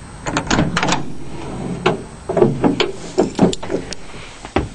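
Side door and body of a Ford Econoline van being handled as someone gets into the cargo area: a string of irregular clunks and knocks, the sharpest near the end.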